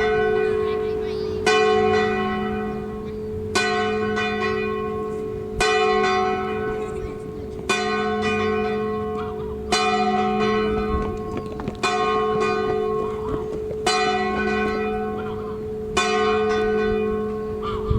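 A single church bell tolling for a church service, struck about once every two seconds. Each stroke rings on with a steady hum until the next one.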